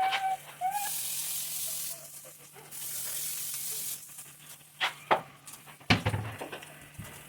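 Food sizzling in a hot pan in two bursts of a second or so each, then a few sharp knocks near the end.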